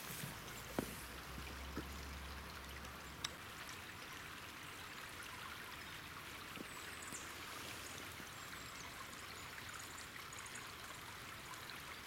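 Small forest stream trickling steadily and faintly. A couple of soft clicks come in the first few seconds, and a few faint high chirps in the second half.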